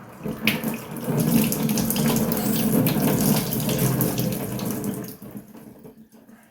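Water running from a tap into a sink, starting about half a second in and dying away near the end.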